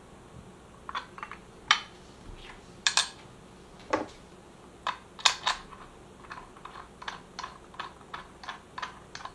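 Small clicks and taps of metal parts being handled on a workbench: spark plugs, washers and a two-stroke cylinder head cover with replaceable domes picked up, set down and a plug threaded in by hand. A few louder knocks come in the first half, then a run of lighter, quick clicks.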